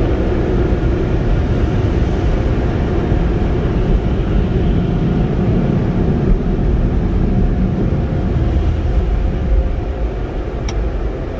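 Car wash air dryers blowing on the car at the end of the wash tunnel, heard from inside the car as a loud, steady rush of air with a low hum. It eases off slightly near the end.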